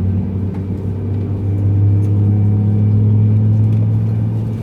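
Steady low hum inside the cabin of an Airbus A321 standing on the ground before departure.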